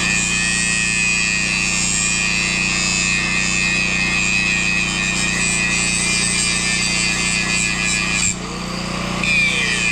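Steady, loud metalworking noise on a steel bracket, from a welding arc or an abrasive tool. It cuts off sharply about eight seconds in, and a shorter burst follows near the end.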